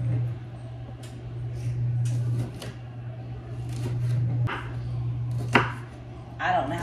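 Kitchen knife chopping vegetables on a wooden cutting board: irregular knocks of the blade on the board, the sharpest about five and a half seconds in, over a steady low hum.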